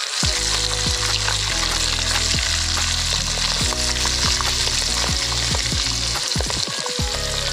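Garden egg stew sizzling and bubbling hard in hot oil in a pan, with a spatula scraping and stirring through it. The sizzle is a dense, steady hiss.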